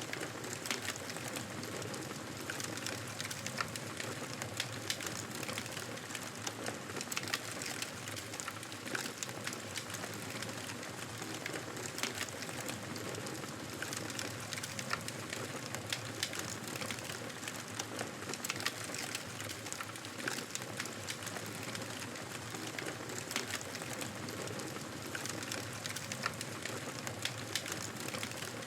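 Wood fire burning in a fireplace: a steady crackling hiss with frequent sharp, irregular pops.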